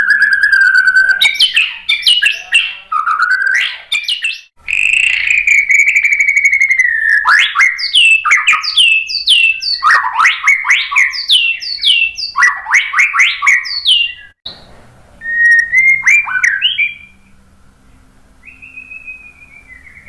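White-rumped shama singing: clear held whistles alternating with fast runs of sharp downward-sweeping notes, turning softer and sparser near the end.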